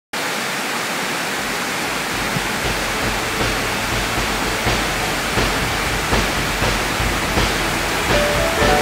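Steady rush of water from waterfall cascades. From about two seconds in, music fades in beneath it with a soft, regular beat, and melody notes enter near the end.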